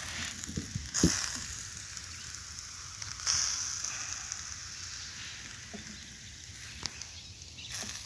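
Small fire crackling and hissing as it gets going: a steady hiss with a few sharp crackles.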